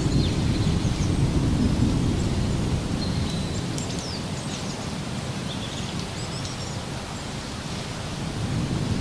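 A steady low rumbling noise, like distant thunder, with short high chirps scattered over it.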